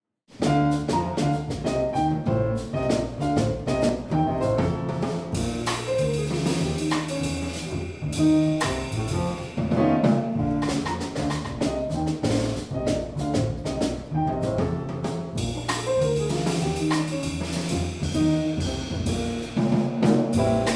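Jazz piano trio (acoustic piano, upright double bass and drum kit) playing a bebop tune on rhythm changes, the music starting suddenly a moment in.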